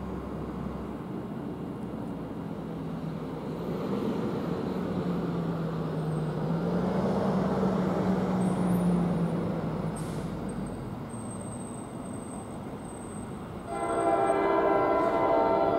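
Approaching NJ Transit electric train sounding its horn, a loud chord of several notes that starts suddenly near the end, over a low rumble that swells and fades in the middle.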